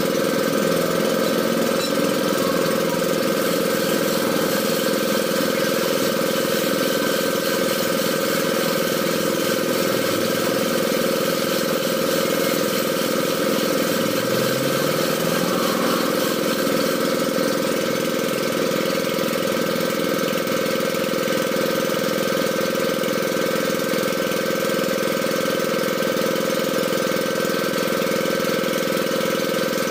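Engine of a well-drilling machine running steadily at constant speed, a continuous hum that does not change.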